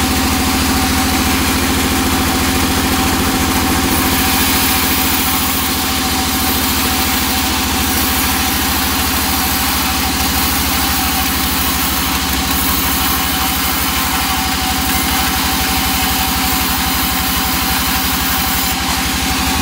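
Large band sawmill ripping a teak beam lengthwise: a steady machine hum at an even pitch under a loud, even noise of the blade cutting through the wood.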